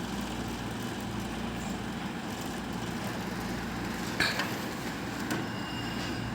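Split AC indoor unit running with a steady hum and buzz, the vibration noise of a loose part that is not seated in its locks. A short click about four seconds in.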